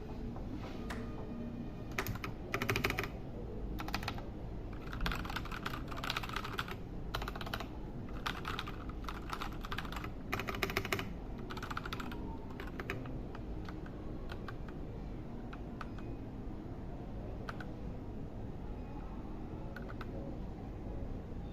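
Typing on a Keycool KC84 mechanical keyboard with Gateron Red linear switches: bursts of quick keystrokes for about ten seconds, then only scattered single key presses.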